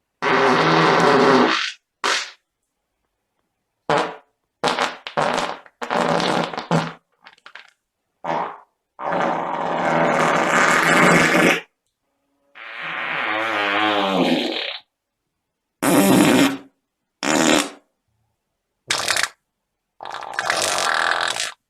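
Fart sound effects played one after another: about a dozen, some short blurts and a few long, drawn-out ones lasting two to three seconds, with silence between them.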